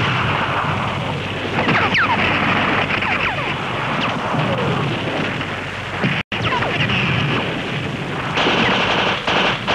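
Battle noise on an old film soundtrack: a dense, continuous rumble and crackle of explosions and fire, with several falling whistles over it. It cuts out for an instant a little past six seconds in.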